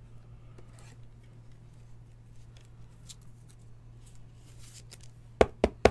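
Hands handling a trading card in a hard clear plastic holder: faint light scrapes and small ticks, then three sharp clicks in quick succession near the end.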